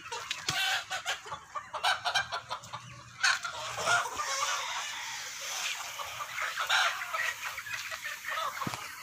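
A flock of desi chickens clucking and calling, with short irregular calls overlapping throughout and a rooster crowing.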